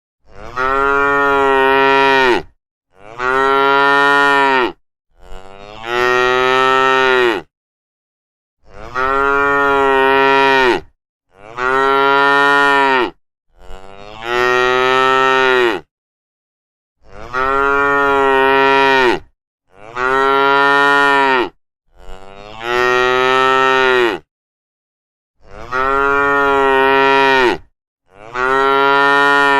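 A cow mooing over and over: eleven long moos of about two seconds each, with dead silence between them. The same pattern of three calls comes round again about every eight seconds.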